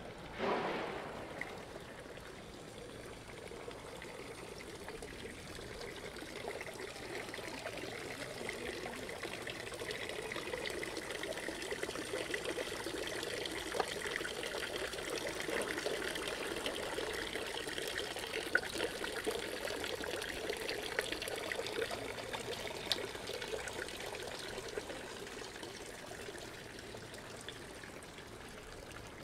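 Water pouring and splashing steadily, growing louder toward the middle and fading again near the end. A brief, loud sound stands out about half a second in.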